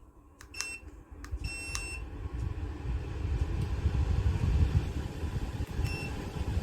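Ceramic fan heater's control panel beeping as its buttons are pressed: a short beep, a longer beep, and another short beep near the end, with faint clicks. Its fan starts about a second in and a steady rush of air builds up and carries on, with a rumble heavy in the low end.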